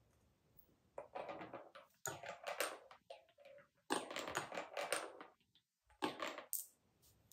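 A marble rolling and clattering through the grooves and tunnels of Cuboro beech-wood track blocks. It comes in four bursts of quick rattling clicks with short gaps between them.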